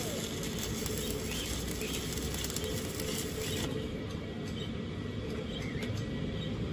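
Stick-welding arc crackling and sputtering as a rod electrode lays a bead on thin steel tubing. It cuts off a little over halfway through, leaving a lower, steady background hiss.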